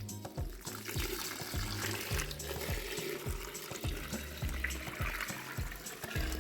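Running water, heard over background music with a steady beat.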